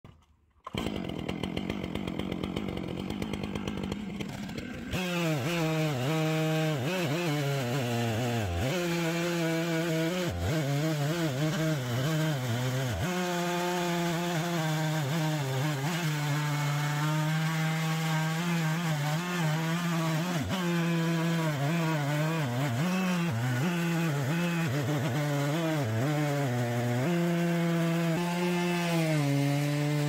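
Chainsaw on an Alaskan chainsaw mill. It comes in about a second in, running lighter and quieter, then at about five seconds it goes to full throttle and rips lengthwise through a large white oak log. The engine pitch dips and recovers again and again as the chain bogs in the cut.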